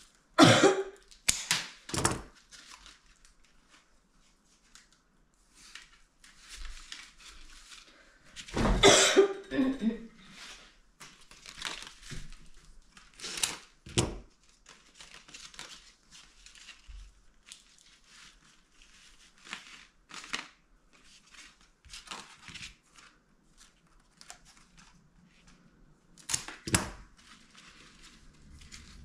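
Irregular crinkling and rustling of craft materials being handled, broken by a few louder sharp crackles and clicks, the longest about nine seconds in.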